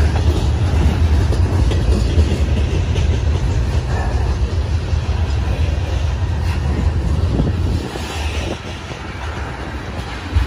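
Freight train of covered hopper cars and tank cars rolling past close by: a steady low rumble of steel wheels on the rails with occasional clicks. The rumble eases slightly for the last couple of seconds.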